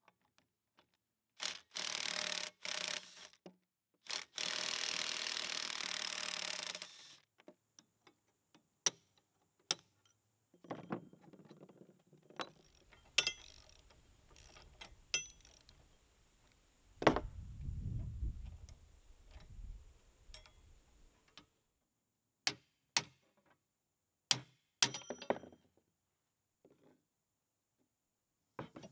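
Hand tools at work on a rusty Manley mechanical floor jack on a wooden bench. Two long runs of rapid ratchet clicking come near the start, then scattered metal clicks and clinks. A heavy thud on the wood comes about halfway, and a series of sharp hammer strikes near the end.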